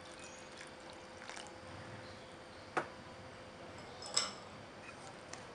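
Water poured into flour in a mixing bowl, with soft wet squishing and small ticks, then two sharp clicks of a spatula knocking against the bowl, about three and four seconds in, over a faint steady hum.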